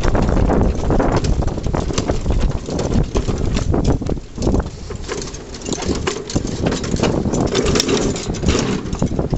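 A pony's hooves clip-clopping as it pulls a two-wheeled cart, with the cart's frame and wheels rattling and knocking over uneven ground. A heavy rumble of wind on the microphone fills the first few seconds.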